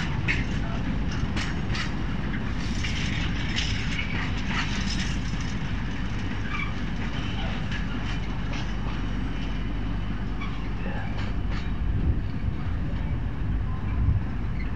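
Freight train's container flat wagons rolling past: a steady low rumble of wheels on rail, with scattered clicks, most of them in the first few seconds.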